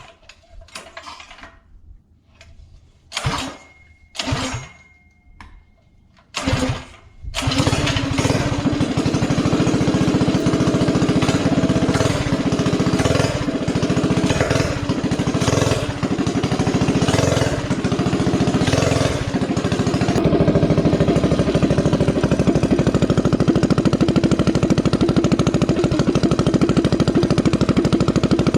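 Stage 3 mini bike engine running with an open header pipe, its baffle tip off. A few short bursts come in the first seven seconds, then the engine runs continuously and loud, revving up and down about every second and a half before settling to a steady run from about twenty seconds in.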